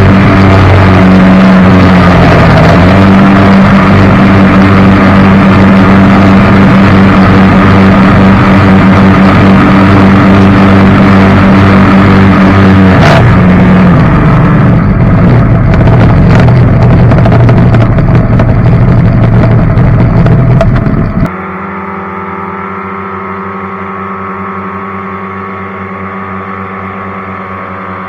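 Jet boat engine running hard under way, loud and steady, with its pitch dipping briefly twice. About 21 seconds in it cuts off abruptly to quieter background music.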